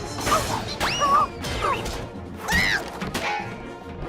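Cartoon crash and clatter sound effects over music: several sharp hits, with short pitched glides that rise and then fall around a second and two and a half seconds in.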